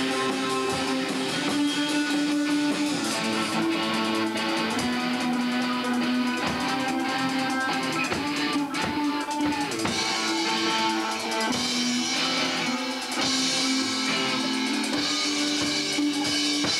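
Rock band playing live on electric guitars, electric bass and drum kit, with sustained guitar chords over a steady beat. The cymbals grow brighter about ten seconds in.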